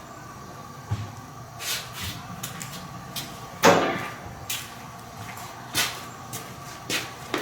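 Steel camera-boom parts knocking and clanking together as they are handled and fitted, about half a dozen sharp knocks. The loudest is a clunk with a short scrape about three and a half seconds in.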